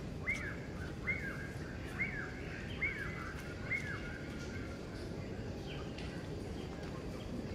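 An animal's short call, each dropping sharply in pitch, repeated six times at a bit under one a second and then once more near the end, over steady outdoor background noise.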